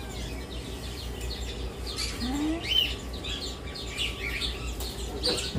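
Many caged birds chirping at once, a dense mix of short high chirps and tweets.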